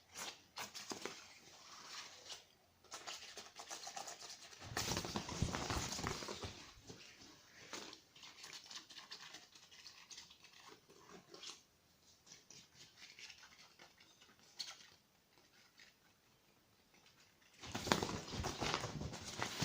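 A cat playing with a rustling toy: scattered scratches and rustles with light pattering, in two longer, louder spells of rustling about five seconds in and near the end.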